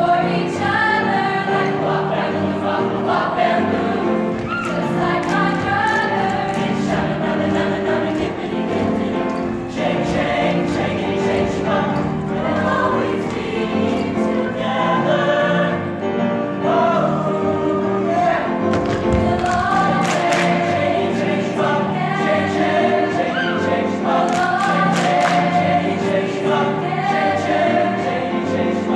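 Mixed-voice show choir singing in harmony over a steady beat.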